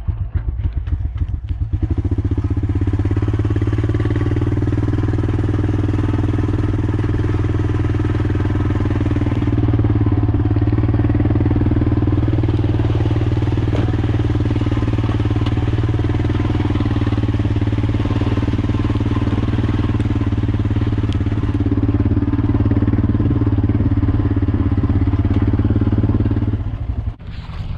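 ATV (four-wheeler) engine running steadily under way through grass, picking up about two seconds in and cutting off near the end.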